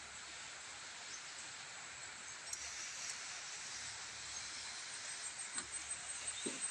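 Faint, steady outdoor background hiss, with a few soft clicks and rustles that grow more frequent near the end.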